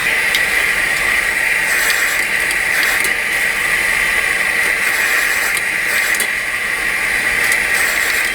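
Steady frying hiss of noodles and egg in a hot pan, with faint scattered clicks.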